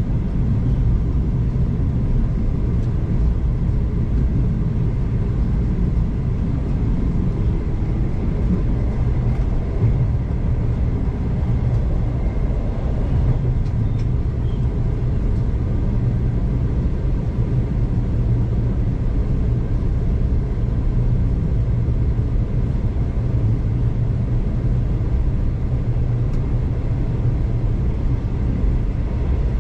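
Steady low rumble of a passenger train running along the line, heard from inside the carriage, with no distinct clicks or horn.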